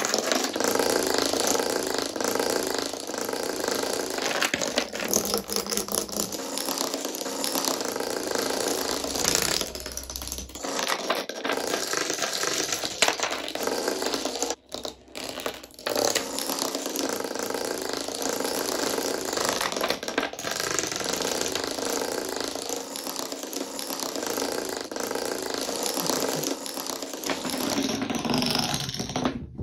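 Toy dominoes toppling one after another in long chains: a fast, continuous clatter of small clicks, with two brief breaks about halfway through.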